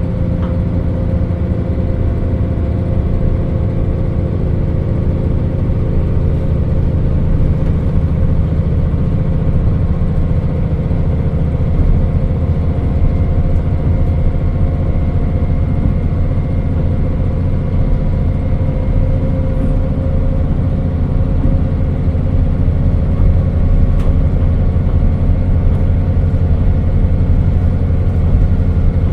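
JR Hokkaido KiHa 40 diesel railcar under way: a steady diesel engine drone mixed with running noise, growing slightly louder.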